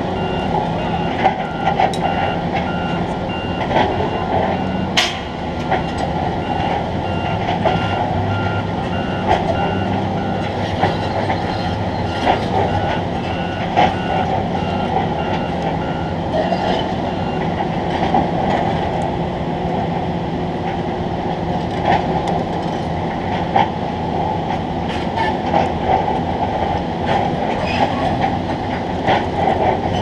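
Construction-site machinery running with a steady rumble and frequent clicks and rattles, while a vehicle's reversing alarm beeps repeatedly through the first half and then stops.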